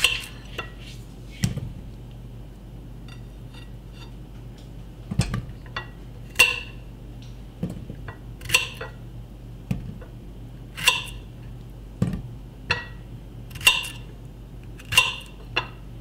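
A kitchen knife clinking on a ceramic plate as a yellow squash is sliced, with slices dropping into a stainless steel pot. There are about ten sharp clinks, a second or two apart, each with a brief ring.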